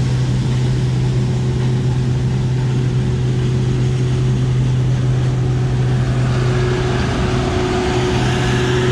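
Large diesel engine running at a steady, even speed, a continuous low hum with no change in pitch.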